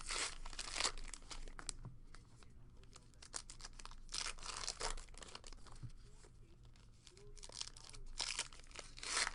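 Trading card pack wrappers being torn open and crinkled, in several short bursts with small clicks and rustles between them.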